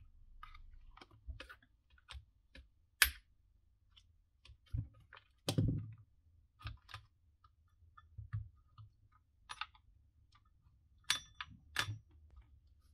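Plastic housing and internal parts of a partly disassembled Milwaukee M18 random orbital sander clicking and knocking as they are handled, at irregular moments. A sharp click comes about three seconds in, a duller knock near the middle, and two quick clicks near the end.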